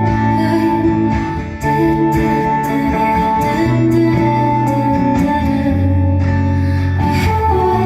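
Acoustic guitar strumming chords, the chord changing about every two seconds, with a steady high note held above.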